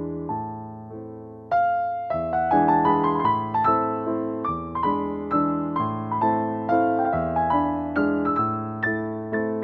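Background piano music: a gentle melody of single struck notes, growing louder about a second and a half in.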